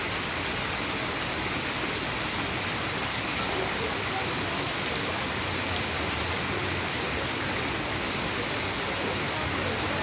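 Steady rush of running water with no breaks, with faint voices in the background.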